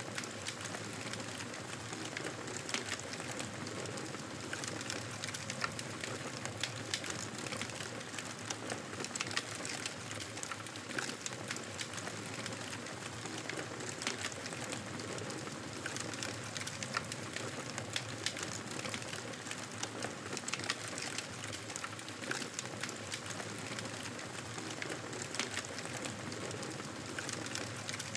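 Wood campfire burning, with frequent irregular crackles and pops over a steady hiss of flames.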